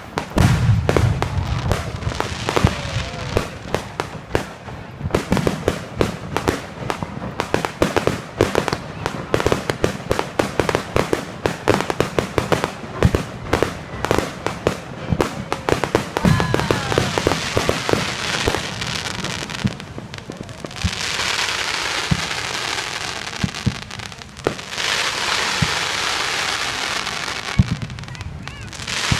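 Fireworks going off: a rapid, continuous barrage of pops and bangs, then two long stretches of dense hissing crackle in the last third.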